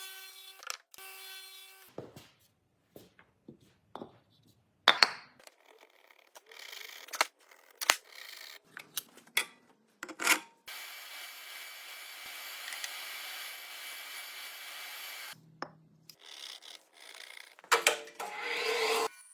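Woodworking sounds: a series of sharp wooden knocks and clatters as pieces are handled, with a steady stretch of tool noise lasting about five seconds in the middle.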